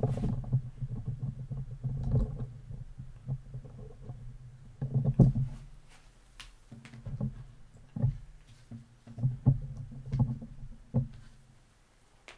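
Camera handling noise: a low rumble with irregular knocks and clicks as the camera is moved and set in place, fading out near the end.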